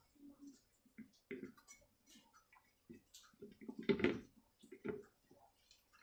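Scattered small clicks and soft knocks of wires and fittings being handled on a table fan's metal base plate, the loudest about four seconds in.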